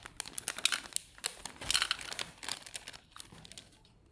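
Clear plastic packaging bags of hair ties crinkling as they are handled, a quick irregular crackle that thins out near the end.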